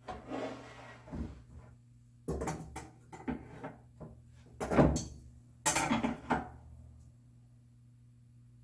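A wooden shelf board being set down and shifted on a walnut workpiece: a string of wooden knocks and bumps over the first seven seconds, the loudest about five seconds in.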